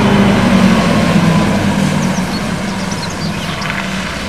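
A coach bus's diesel engine running as the bus moves off slowly: a steady low drone with a faint whine that falls slightly in pitch. Birds chirp faintly in the second half.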